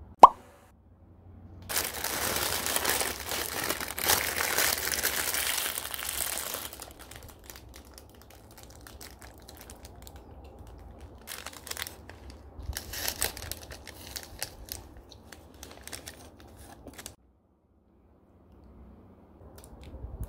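A short sharp pop just after the start, then a McDonald's sandwich paper wrapper crinkling loudly for about five seconds as it is unwrapped, followed by softer, scattered rustles of the wrapper.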